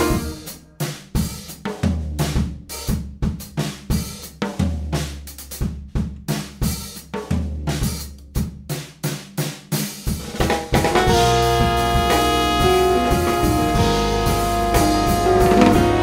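Jazz band: for about ten seconds the drum kit plays sparse, broken hits on snare, bass drum and cymbals over a few low bass notes, then the full band comes in with long held notes.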